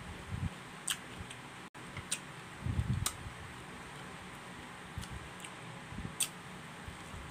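A person chewing pineapple pieces close to the microphone. A few soft chewing crunches come with sharp wet mouth clicks in between.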